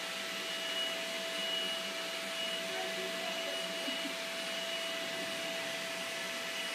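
Vacuum cleaner running steadily with a constant motor whine.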